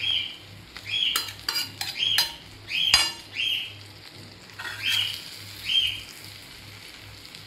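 Metal utensil scraping and clinking on an iron tawa while the egg fry is dished out, over a faint sizzle: about eight short scrapes that each rise in pitch, and several sharp taps in the first half.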